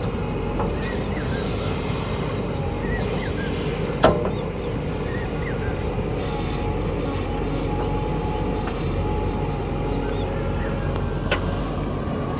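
JCB backhoe loader's diesel engine running steadily, with a sharp knock about four seconds in and a smaller knock near the end.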